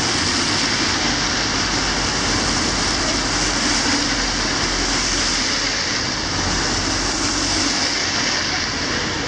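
Steady rain on a wet city street, with a black taxi and then a van passing close by, their tyres hissing on the wet road so that the noise swells gently as each one goes by.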